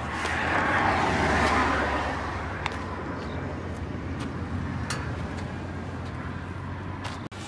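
Road traffic noise, with a vehicle passing close by in the first two seconds that then fades into the steady hum.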